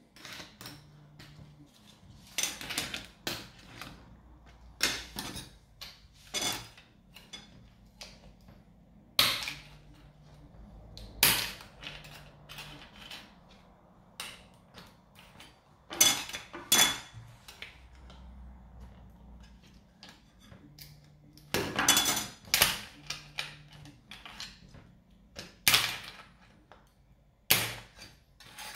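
Plastic scraper and metal knife blade prying a large PLA 3D print off a printer bed sheet: irregular sharp clicks, scrapes and snaps as the print is worked loose, a few of them loud, some with a brief metallic ring.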